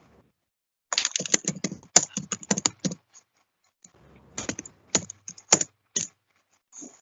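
Typing on a computer keyboard: a quick run of key clicks for about two seconds, then a pause and a few separate keystrokes.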